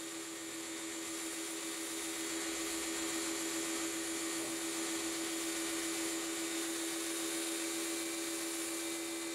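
Electric pressure washer running steadily with a constant hum, its water jet hissing as it sprays the inside of a fibreglass boat hull.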